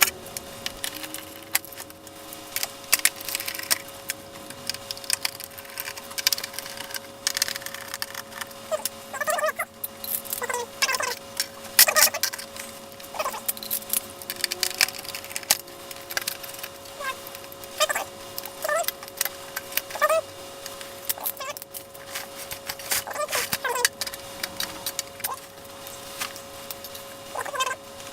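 Irregular clicks, taps and clatter of hand tools and small parts as an LCD monitor is taken apart, with short squeaks mixed in and a faint steady hum underneath.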